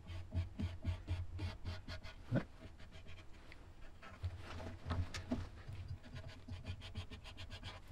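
White marker scratching in short strokes on a steel plate as it traces around a curved rubber template. It is faint, with a couple of sharper ticks about two and a half and five seconds in.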